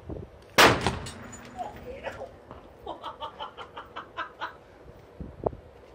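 A sealed 3.6 V lithium thionyl chloride D-cell explodes with one very loud bang about half a second in, followed by a short echo. The non-rechargeable cell has been forced to take current from a 12 V supply until it overheated and burst.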